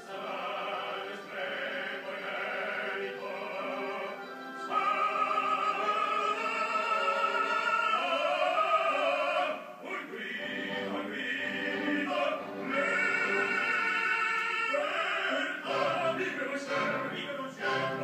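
Opera music playing: a singer holding long notes with vibrato over classical accompaniment.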